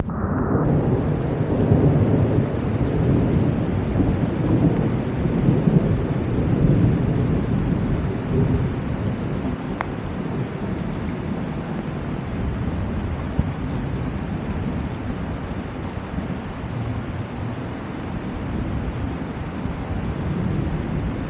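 Heavy rain falling steadily, with a long low rumble of thunder over the first several seconds that dies away.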